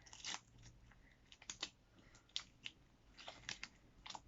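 Clear glue slime being kneaded by hand: faint, irregular sticky clicks and small pops. The slime is still somewhat sticky after a little more activator.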